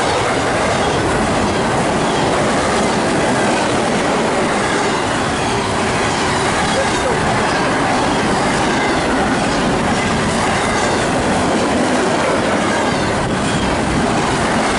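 Double-stack intermodal freight train passing close by at about 70 mph: a steady, loud rush of steel wheels on rail with rapid wheel clatter.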